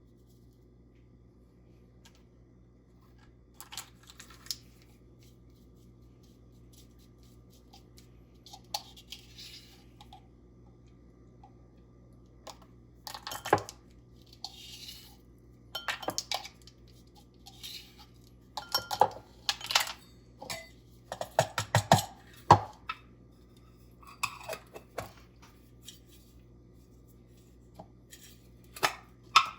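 Kitchen utensils and small containers being handled while mixing ground spices: scattered clinks, taps and a few sharp knocks, busiest about two-thirds of the way through, with a few short soft rustling sounds between them.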